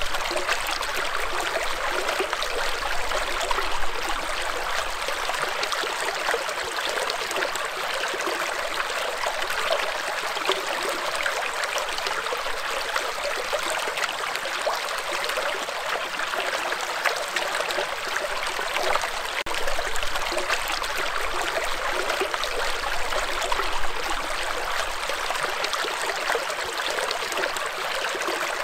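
Shallow stream running over and around rocks: a steady, even rush of water.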